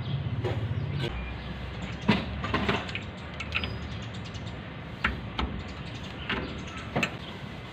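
Irregular metal knocks and clicks as a greased wheel bearing and hub are pushed back onto the spindle of a Mitsubishi L300 and seated. About nine separate knocks, with a low hum under the first second or so.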